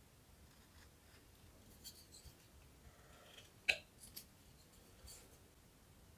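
Faint scraping cuts of a hand carving gouge paring a small piece of wood, with a sharp click a little over halfway through and a softer click just after.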